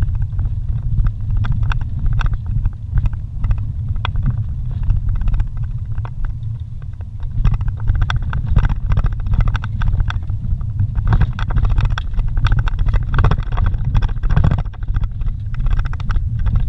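Vehicle driving slowly over a dirt forest road, heard from inside the cab: a steady low engine and tyre rumble with frequent short knocks and rattles from the rough surface.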